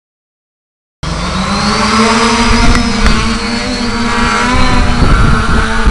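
A 650-size quadcopter's motors and propellers are running with a steady drone whose pitch wavers slightly as the motors adjust. The sound cuts in abruptly about a second in.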